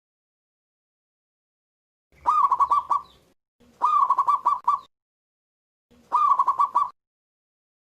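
Zebra dove (perkutut) cooing: three song phrases, each a rising opening note followed by a quick run of stuttering coos, with short pauses between them. The first phrase starts about two seconds in.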